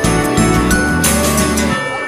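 Christmas music with jingle bells shaken in a steady beat over held notes and a bass line; the music breaks off shortly before the end.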